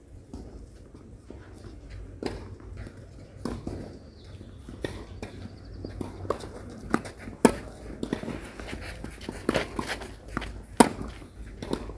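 Tennis ball knocks on a clay court: a serve and a rally of racket hits and bounces, a string of sharp knocks with the loudest about seven and a half and eleven seconds in.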